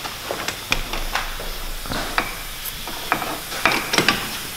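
Scattered light metallic clicks and taps as a pneumatic impact wrench and its socket are handled against a car's front wheel hub, with the wrench not yet running.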